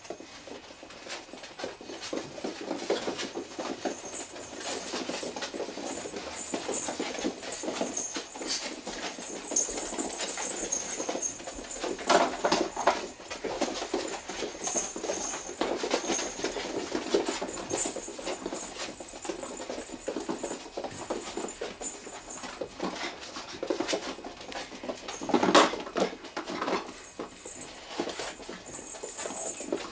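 A litter of six-week-old puppies playing and wrestling: small squeaks and yips over paws pattering on the floor, with two louder yelps about twelve and twenty-five seconds in.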